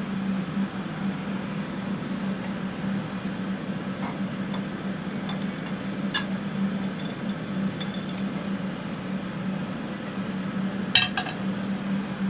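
Scattered light clinks of metal tongs and a silver piece against the pickle pot as a soldered piece is fished out of the acid pickle, with a louder pair of clinks about 11 seconds in. Under them runs the steady hum of the ventilation fans.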